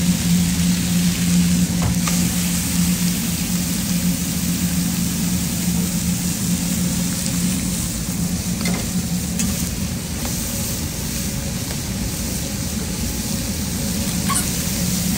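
Meat, onions and nopales sizzling and frying on a flat-top griddle: a steady hiss over a constant low hum, with a few light clicks of a metal spatula.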